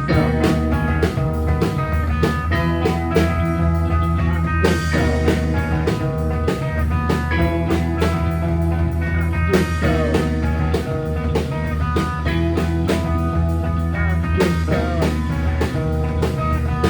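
Live band playing an instrumental passage: guitar over a steady bass line and drum kit, with the drums coming in right at the start.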